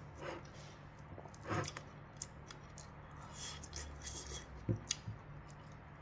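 Fingers mixing and scooping rice and curry in a ceramic bowl: soft scraping and squishing with a few short sharp clicks, the loudest about a second and a half in and two more close together near the end.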